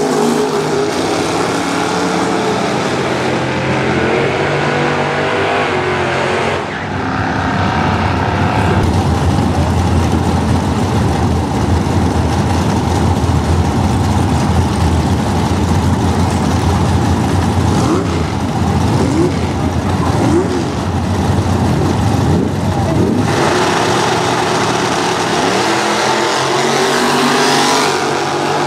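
Drag-racing cars' engines at wide-open throttle, launching off the line and running hard down the strip. The sound is loud throughout and changes abruptly about seven seconds in and again about twenty-three seconds in.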